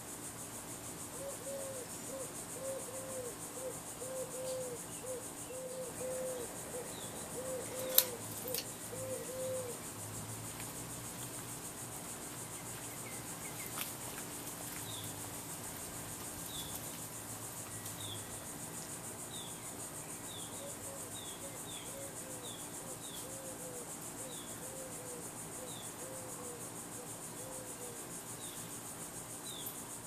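Steady chorus of crickets over the low hum of a running ceiling fan motor. Two runs of short repeated chirps, about two a second, and a few scattered high chirps come through it. A single sharp click sounds about eight seconds in.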